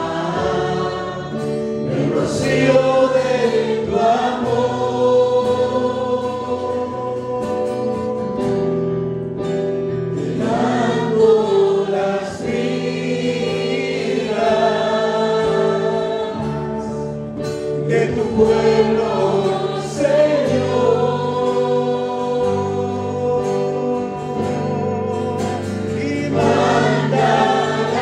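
Choir singing a Spanish-language Christian worship song, the voices moving in phrases of a few seconds over long held low notes.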